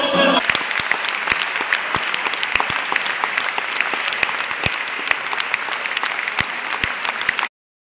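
Concert audience applauding, a dense, even patter of many hands clapping. It cuts off abruptly near the end.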